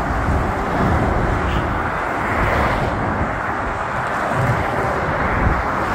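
Steady motorway traffic noise: the tyres and engines of cars and lorries passing at speed below a bridge, an even rush with no horn.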